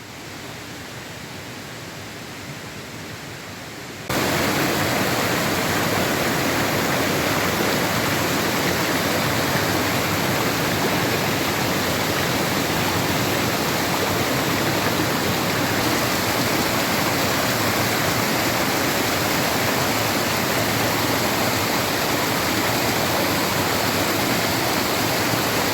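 Waterfall running with a heavy flow of water: a steady rush that jumps suddenly louder about four seconds in and then holds.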